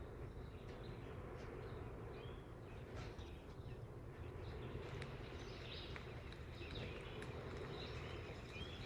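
Faint outdoor nature ambience: a steady low rumble with scattered short, high chirps.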